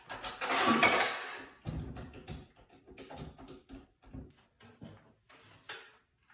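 A loud rush of noise for about the first second and a half, then a run of light clicks and knocks from hard objects being handled.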